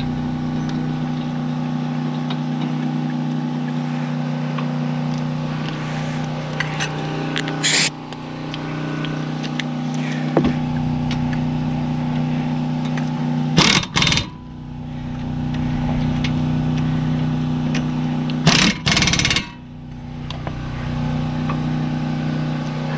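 A steady low mechanical hum, with scattered metallic clicks of hand-tool work and three short loud bursts of noise about 8, 14 and 19 seconds in.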